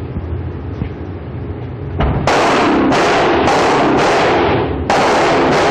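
Glock 19 9mm pistol firing a rapid string of about seven or eight shots, roughly two a second, starting about two seconds in. Each shot rings on in the enclosed range, and the string is loud enough to overload the recording.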